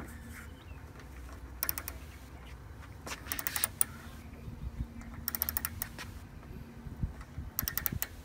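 Ratchet wrench clicking in four short bursts of rapid ticks as a bolt on a solar panel mounting bracket is tightened, a few strokes at a time.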